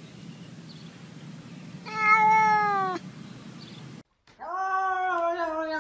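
Domestic cat meowing: one drawn-out meow lasting about a second, pitch falling slightly at the end. After a brief gap, a second long, wavering meow starts about four seconds in and is still going at the end.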